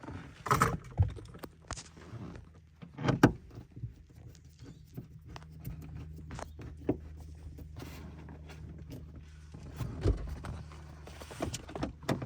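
Scattered clicks and knocks of a plastic sun-visor mount and screwdriver being handled while the visor is screwed into the car roof, over a steady low hum.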